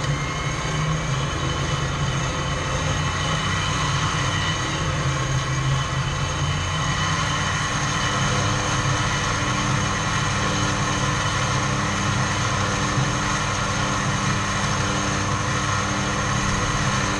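Vehicle winch reeling in its line under load: a steady mechanical whine with engine noise underneath.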